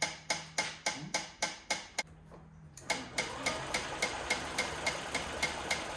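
Honda Ruckus scooter's 49cc single-cylinder engine being cranked by its electric starter, turning over with an even beat of about three to four strokes a second but not firing. The cranking stops about two seconds in and starts again under a second later.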